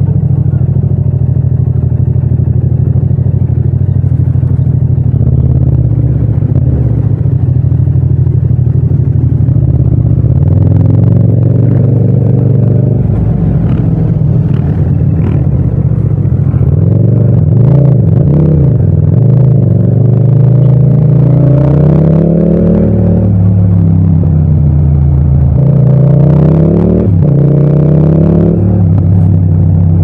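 A parallel-twin motorcycle engine, recorded from the riding position with no wind noise, runs at a steady pitch for the first half. From about halfway it revs up and falls back several times as the bike accelerates and changes gear.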